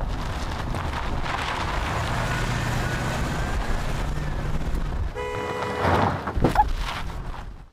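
Ford Econoline van driving up with its engine running, then a short horn honk about five seconds in.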